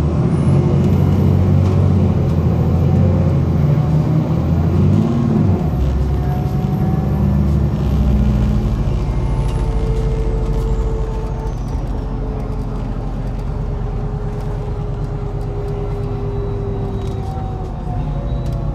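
MAZ-103 city bus heard from on board: the diesel engine pulls loudly for the first several seconds, then eases off as the bus coasts. A high whine falls in pitch from about ten seconds in.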